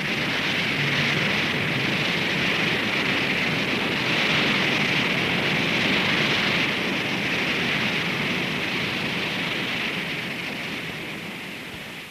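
Steady rushing roar of a rocket engine, fading away over the last few seconds.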